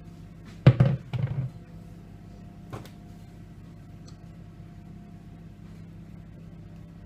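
A quick run of hard kitchen knocks about a second in, like a spoon or bowl striking the cake tin or counter while scraping out the last of the batter, then one lighter click, over a steady low hum.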